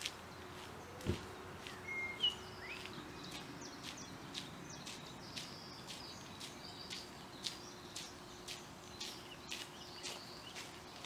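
Footsteps on a gravel path at a steady walking pace, about two steps a second, with small birds chirping. A single dull thump about a second in.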